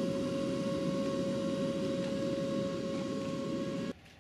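Vineyard air-blast sprayer running, a steady whine over a rushing noise, cutting off suddenly near the end.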